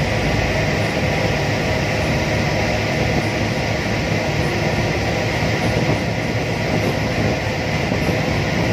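Tug boat's diesel engine running steadily under way, a loud continuous rumble mixed with rushing water and wind.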